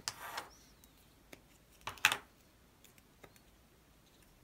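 Small plastic ink pad cases clacking against each other and being set down on a cutting mat: a short shuffle at the start, then a few separate clicks, the loudest about two seconds in.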